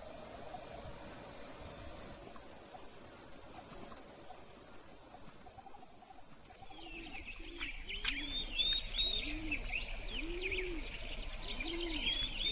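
A steady high buzz of insects. From about seven seconds in, a dove coos in a repeated series of low calls, and a small songbird chirps over it.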